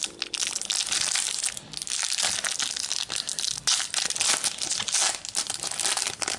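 A Panini Adrenalyn XL foil trading-card packet being torn open and crinkled by hand: a dense, continuous crackling that stops near the end.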